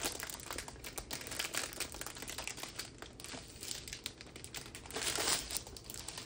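Clear plastic wrap crinkling as hands grip, roll and start peeling it off a rolled canvas. The crackle comes in irregular surges, loudest about a second in, around three seconds and near five seconds.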